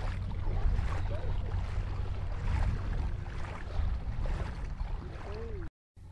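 Legs wading through shallow water with repeated sloshing, splashing steps, over a steady low rumble of wind on the microphone. Near the end the sound cuts out suddenly, then returns much quieter.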